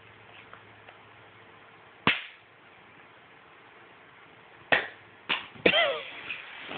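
Small plastic toy eggs snapping open: sharp plastic pops, one about two seconds in and a quick cluster of three near the end.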